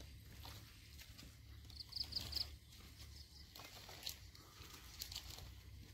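Faint, high chirping calls from a small animal in a quick run of about four notes about two seconds in, with fainter repeats later, over a low steady rumble.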